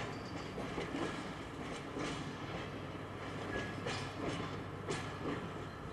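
Track-laying work train's flat wagons, loaded with yellow track-laying gantries, rolling along the rails: a steady rumble with irregular sharp clicks and knocks from the wheels on the track.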